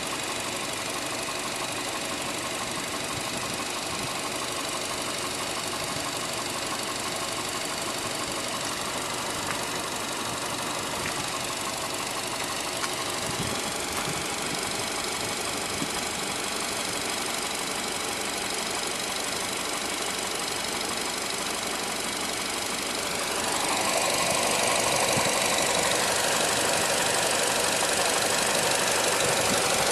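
Nissan MR20DE 2.0-litre four-cylinder engine running with an extraneous noise that the owner is trying to find. It gets louder and brighter a little over two-thirds of the way in.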